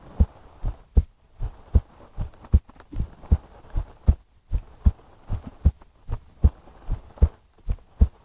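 A person's heartbeat heard close up through a chest microphone: steady, low, paired lub-dub thumps, about 75 beats a minute.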